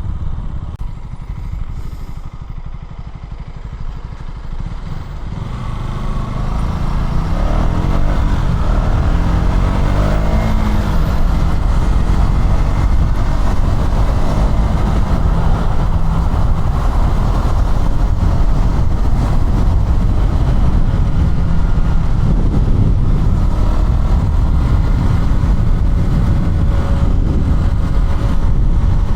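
KTM 200 Duke's single-cylinder four-stroke engine running at low speed. About six seconds in it picks up, the engine note rising through the gears, and then it runs steadily at speed.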